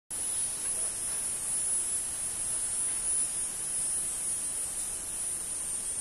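A steady, high-pitched insect drone, unbroken throughout, with a soft background hiss.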